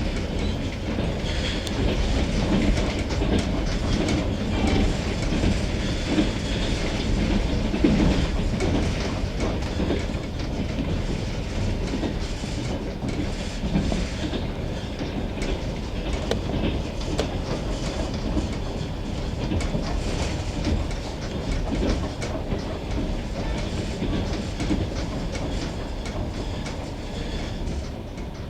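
Passenger train wheels clattering on the rails, heard from aboard a carriage, over a steady rolling rumble.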